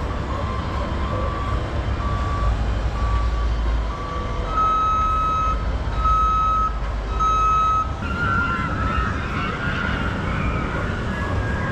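A series of short electronic warning beeps repeating a little over once a second, then three longer, louder, higher beeps about a second apart, over a steady low rumble, like a machine's backup alarm.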